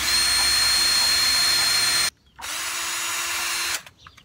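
Ryobi cordless drill with a masonry bit boring into brick. The motor runs at full speed with a steady high whine for about two seconds, stops abruptly, then runs again for over a second before stopping.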